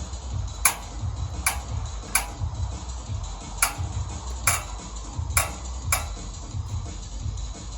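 Seven sharp clicks at uneven intervals over background music with a low, pulsing beat.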